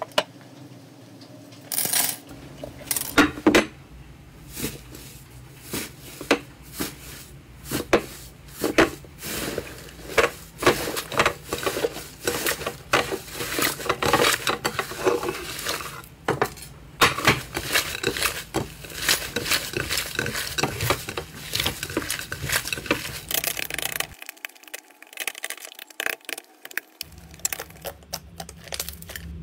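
Slime being pressed and worked by hand, giving a dense, irregular run of sharp clicks, pops and crackles.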